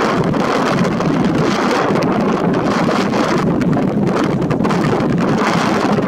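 Loud, steady wind rushing and buffeting on the microphone.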